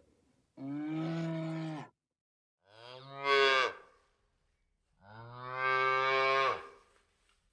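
A calf mooing: three drawn-out bawls with pauses between, the second rising in pitch and the loudest.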